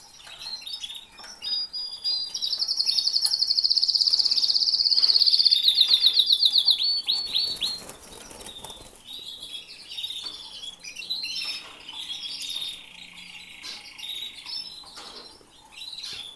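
Canaries singing: a loud, fast trill from about two seconds in until nearly eight seconds, dropping slightly in pitch at the end, among short chirps and a held note later on.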